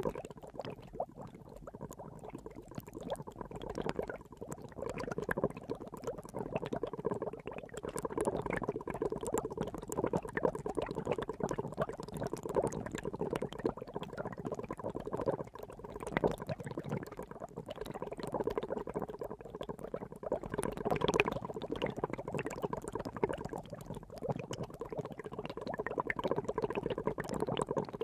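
Water boiling: continuous dense bubbling full of small pops, swelling and easing in loudness.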